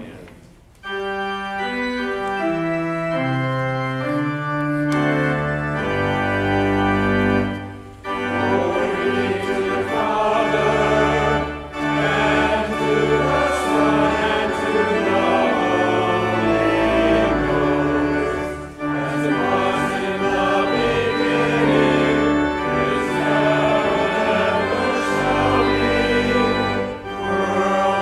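Church organ playing a short introduction of about seven seconds, then congregation singing a hymn with the organ accompanying.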